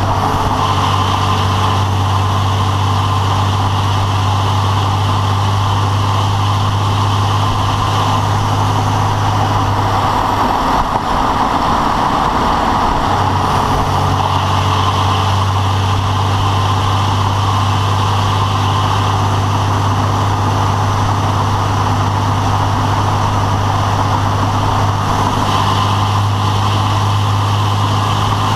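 Engine running steadily with a rapid rattling noise that has appeared since the engine was rebuilt. The low hum of the engine drops away briefly about eleven seconds in.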